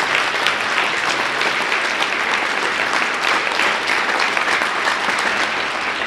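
Audience applauding, a dense, steady patter of many hands clapping.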